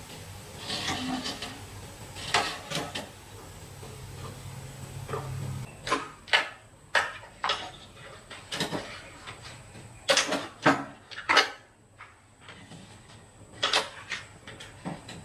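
Irregular knocks and clatters, a dozen or so sharp strikes at uneven intervals, over a low hum that stops about six seconds in.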